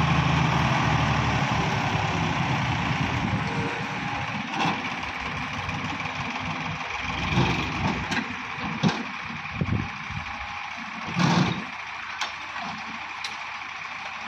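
Sonalika DI 750 RX tractor's diesel engine running, loudest in the first second or two and then quieter, as it tips the hydraulic trailer. Clods of soil sliding off the raised trailer bed land with a series of dull thumps, the biggest about eleven seconds in.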